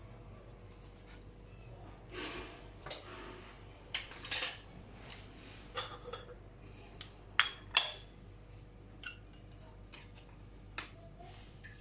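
A knife or cake server clinking and scraping against a plate in short, irregular strokes as a cake is cut and slices are lifted, with two sharper clinks close together a little past the middle.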